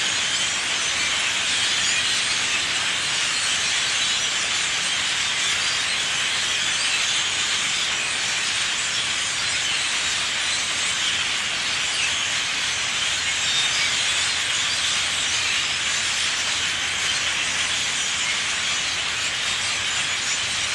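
A huge flock of thousands of birds crowded in a tree, chattering all at once: a dense, steady din of high-pitched calls with no break.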